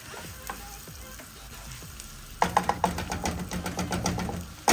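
A spatula stirring and scraping raw rice as it toasts in butter in a pot, with a light frying sizzle. About two and a half seconds in, the stirring turns into quick scraping strokes, several a second.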